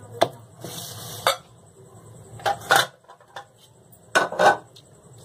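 Plates and glass bowls being handled on a tabletop: a few sharp clinks and knocks, two of them close together near the middle and two more near the end, with a brief rustle about a second in.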